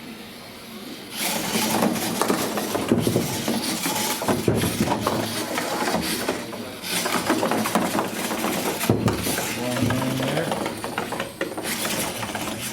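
Small autonomous hobby robot driving across a tabletop board, its wheels and motors clattering with many small knocks and clinks as it bumps and pushes objects around.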